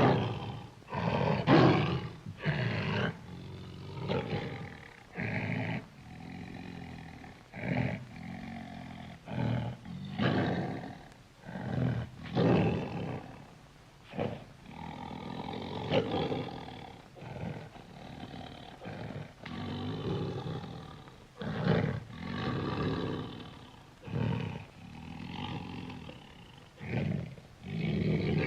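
Bear sound effects: a string of roars and growls, one call after another every second or two, some short and some drawn out.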